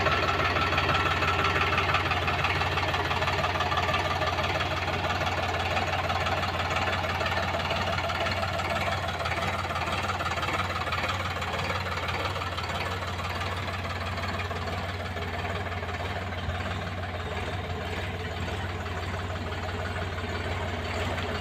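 Sonalika tractor's diesel engine running steadily under load as it pulls a rotavator through the soil, slowly growing fainter through the middle and a little louder again near the end.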